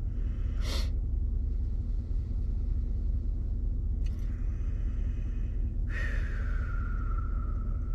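Vehicle engine idling, a steady low rumble heard from inside the cabin, with two brief clicks. About six seconds in, a hiss starts suddenly, carrying a whistling tone that slides down in pitch and then holds.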